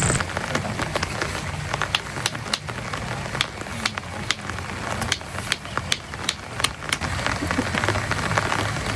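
Rain falling steadily, with heavy drops striking a nearby surface in irregular sharp taps, several a second.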